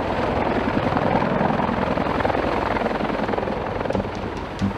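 CH-53 heavy-lift helicopters running close by at low hover, their rotors beating in a steady, rapid chop over the engine noise.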